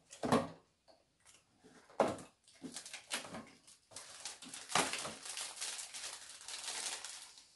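Plastic bread wrappers and clear plastic packs crinkling as they are handled and torn open, first in separate sharp crackles, then in near-continuous crinkling from about halfway.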